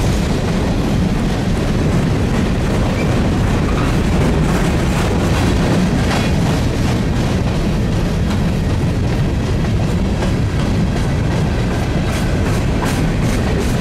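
Freight train cars rolling past: a steady rumble of steel wheels on the rails, with clicks of wheels crossing rail joints that grow more frequent near the end.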